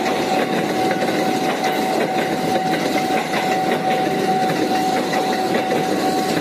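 KRL electric commuter train passing close by at speed: a steady rumble and clatter of wheels on rails, with a steady high tone running under it.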